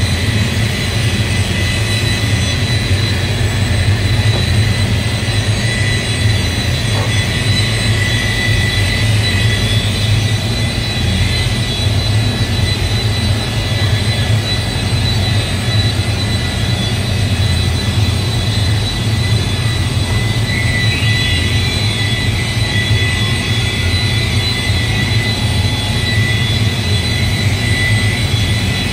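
Electric car-paint polisher running steadily as it buffs the paintwork: a constant low hum with a thin high whine over it.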